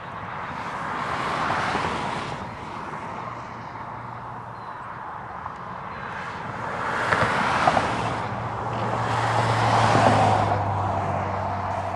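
Distant GE P42DC diesel locomotive leading a passenger train, its steady low engine hum growing from about halfway through as the train approaches. Swells of rushing noise rise and fall three times over it.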